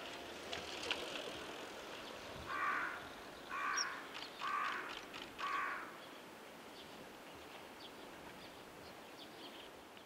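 A crow cawing four times, about a second apart, harsh and fairly loud, over faint high bird chirps and steady outdoor background noise.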